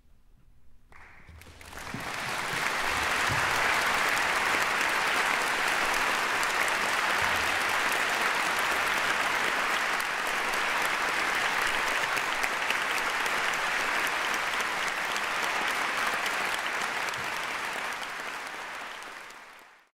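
Audience applauding in a concert hall: the clapping starts after a moment of quiet, swells to full within a couple of seconds, holds steady, then dies away at the end.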